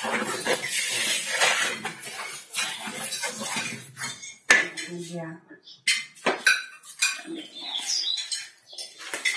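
Utensils scraping and clanking against a cooking pot as sugar is worked in to start a syrup, with a run of sharp knocks, the loudest about halfway through.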